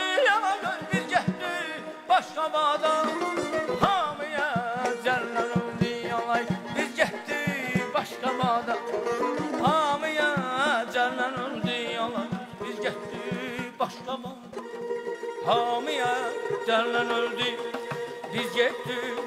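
Azerbaijani mugham ensemble playing: a gaval frame drum and a barrel drum beat a quick, dense rhythm under a wavering, ornamented melodic line.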